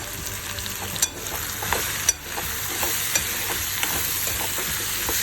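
Potatoes sizzling in hot oil in a pan while a spatula stirs in spices, with small crackles throughout. Two sharp clicks, about a second and two seconds in, are the spatula knocking the pan.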